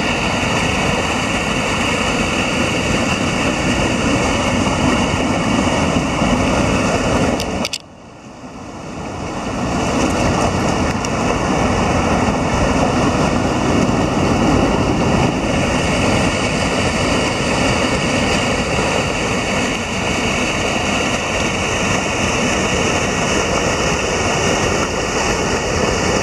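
Small waterfall and rocky mountain stream rushing: a loud, steady rush of water that drops off sharply about eight seconds in and builds back over the next two seconds.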